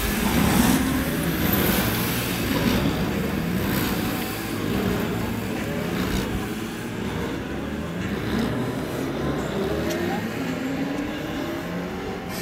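Several Honda CB1300P police motorcycles, inline-four engines, revving up and down as they ride a tight cone course. The sound is loudest at the start as one passes close, then fades slowly as they move away.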